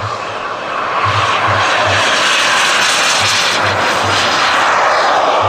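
Behotec JB-180 model jet turbine of a 1:7.5 scale Panavia Tornado RC jet running as the jet rolls down the runway and lifts off. The roar gets louder about a second in and holds steady, its pitch sliding down near the end as the jet passes.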